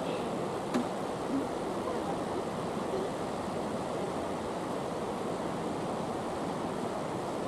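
Steady rushing background noise, with two faint knocks of a tennis ball in play about a second in.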